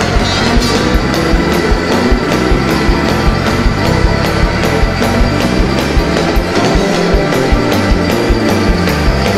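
Live church band playing loud, up-tempo music with a fast, steady drum beat, a praise break in a worship service.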